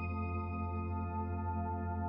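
Background music: a held, ringing chord of several steady tones, over a constant low hum.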